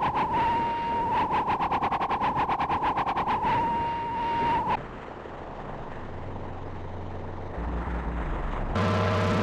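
Electronic warbling alarm tone, pulsing about six or seven times a second and wavering slightly in pitch, which cuts off abruptly about halfway through. A low hum follows, and near the end a new siren-like sound of several steady tones starts.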